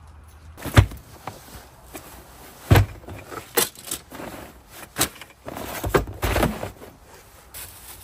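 A run of irregular thumps and knocks from footsteps and camping gear being handled. The two loudest come about a second in and about three seconds in, with a closer cluster near the end.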